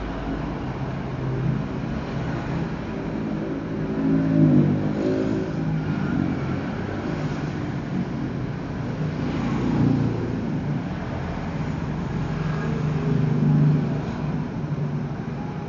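Motor vehicles running past, their engine sound swelling and fading three times: about four, ten and thirteen seconds in.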